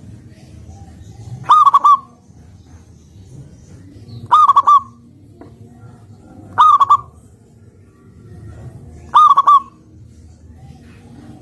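Zebra dove (perkutut) cooing its song four times, about every two and a half seconds. Each call is a short, high, trilled burst of three or four quick notes.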